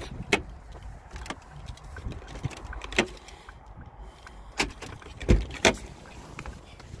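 Scattered sharp clicks and knocks from hands and keys at a car's controls, about six in all, with a heavier low thump about five seconds in, over a low steady rumble.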